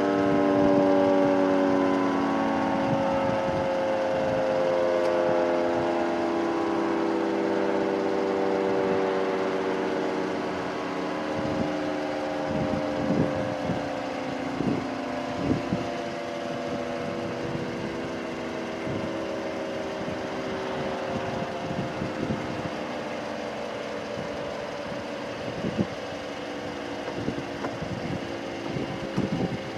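Federal Signal 3T22A three-tone rotating warning siren winding down after its Alert signal: a chord of several tones sliding slowly lower and fading as the rotor coasts to a stop. Scattered sharp knocks sound through the second half.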